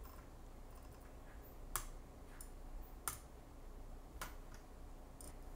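Three faint computer mouse clicks, a second or so apart, over a faint steady hum.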